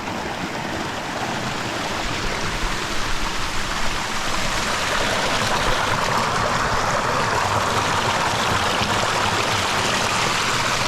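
Waterfall pouring into a pool: a steady rush of falling water that grows louder a few seconds in, then holds.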